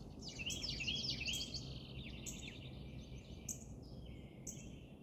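Small birds chirping and twittering: a quick run of short chirps in the first couple of seconds, then scattered calls, over a faint low background noise.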